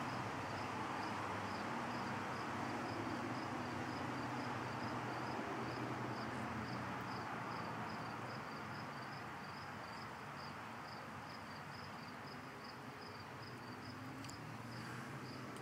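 A cricket chirping steadily and evenly, about three short high chirps a second, over a steady background hiss.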